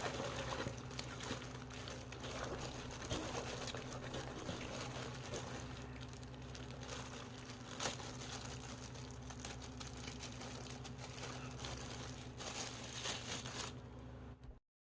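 Steady crinkly rustling with scattered clicks: hands, likely in plastic kitchen gloves, tossing and mixing young radish kimchi in its wet seasoning, over a low steady hum. The sound cuts off suddenly near the end.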